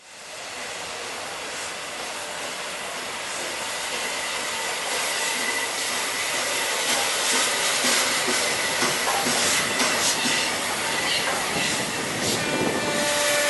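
LNER A3 steam locomotive Flying Scotsman rolling slowly past with steam hissing and knocks and clanks from its running gear, growing louder as it comes closer. A thin steady high squeal runs through it, and several more squealing tones come in near the end.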